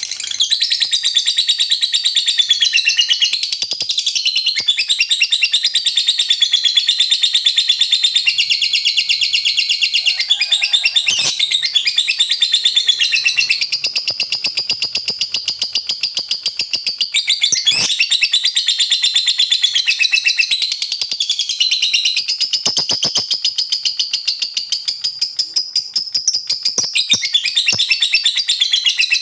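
Lovebird singing its long 'ngekek' chatter: an unbroken, rapid, high-pitched trill whose pitch wavers up and down, with no pause.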